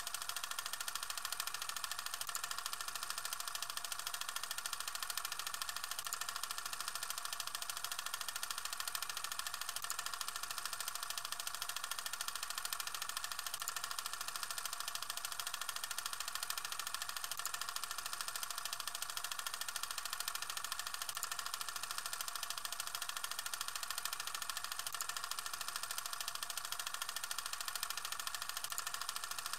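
A film projector sound effect: a steady, even mechanical whir and clatter, thin and hissy with little bass.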